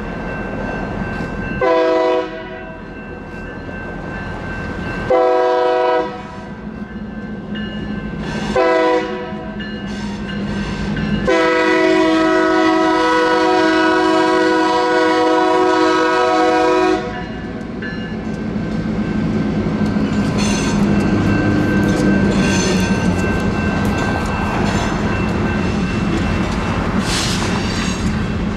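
Union Pacific freight locomotive's air horn sounding at a grade crossing: three short blasts, then a long one of about six seconds, over the steady ringing of the crossing's electronic bells. After the horn, the locomotive rumbles past and the freight cars' wheels clatter over the crossing.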